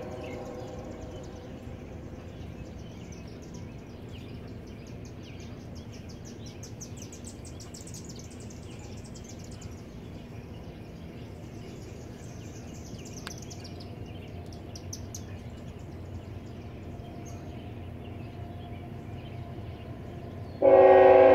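Birds chirping high and fast over a low steady background rumble. Near the end a CSX locomotive's air horn comes in suddenly, much louder than everything before it.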